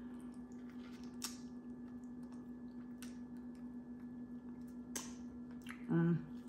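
A steady low hum with a few faint, isolated clicks of light handling, and a brief voiced sound near the end.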